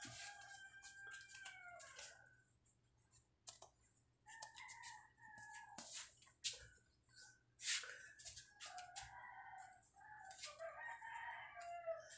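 Roosters crowing, faint: several long drawn-out crows, one at the start, another around the middle and a longer warbling one near the end. Scattered sharp clicks and taps between them.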